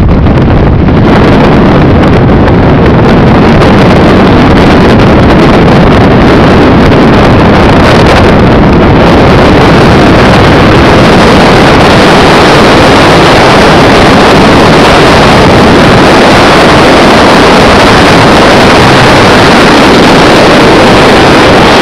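Strong wind buffeting the camera's microphone: a loud, steady rush of noise.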